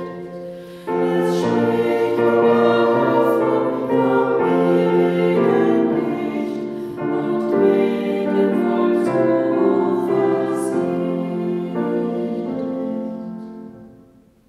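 Voices singing a song with musical accompaniment, fading out and ending near the end.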